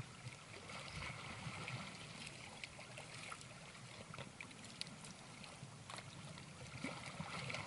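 Faint sea water lapping and trickling, with a few small scattered clicks.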